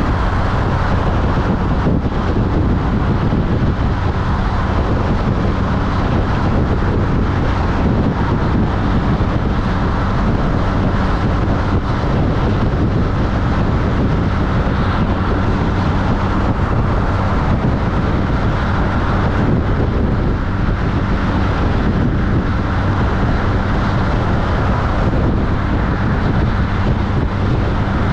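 Benelli TRK502X's parallel-twin engine running at a steady cruise of about 65 mph, with wind rushing over the microphone and tyre noise. The engine note holds even throughout.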